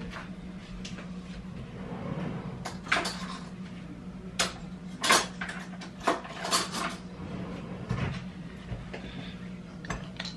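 A string of sharp knocks and clatters as kitchen cabinetry is opened and shut and cutlery rattles while a metal spoon is fetched.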